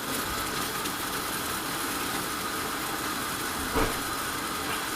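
Pot of kashayam (spiced herbal decoction) boiling steadily on the stove, with one short knock a little before four seconds in.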